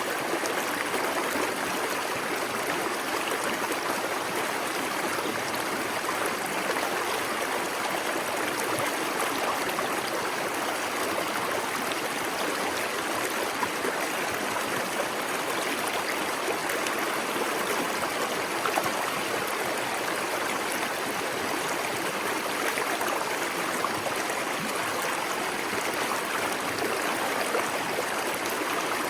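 Small waterfall pouring steadily into a plunge pool, a continuous rush of splashing and trickling water.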